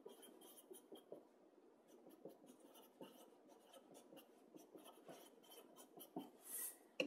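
Marker writing on chipboard: faint short strokes of hand lettering, with a slightly longer, louder stroke near the end.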